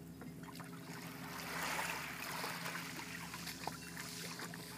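Shallow seawater splashing and trickling as a child wades and climbs out, loudest about two seconds in, with small knocks, over a steady low hum.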